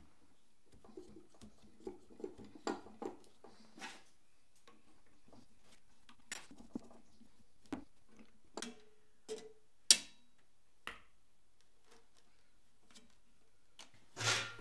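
Scattered clicks, taps and knocks of metal parts being handled and fitted on a hand-held spot welder, with one sharp click about ten seconds in.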